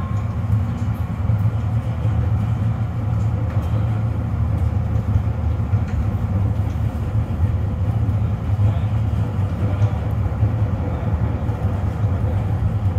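Duewag GT8N articulated tram heard from inside the passenger cabin while running: a steady low rumble with no pauses.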